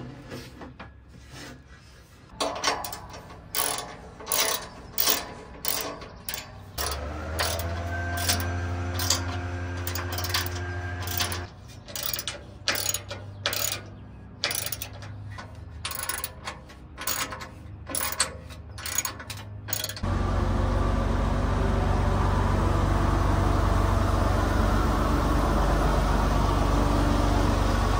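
Hand ratchet clicking in short bursts as the bolts of an aluminium catalytic-converter shield are tightened under a 2023 Toyota Tundra, with a low hum for a few seconds in the middle. About 20 s in, it cuts to the Tundra's twin-turbo V6 idling steadily, heard from beneath the truck by the exhaust.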